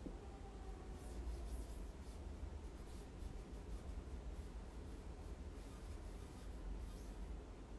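Quiet room tone with a steady low hum and faint, soft, irregular scratching and rustling.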